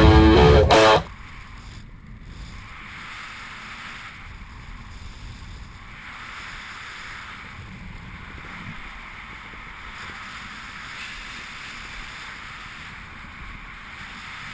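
Rock music with electric guitar cuts off about a second in. It leaves a steady rushing hiss of wind on an action camera's microphone during parachute canopy flight.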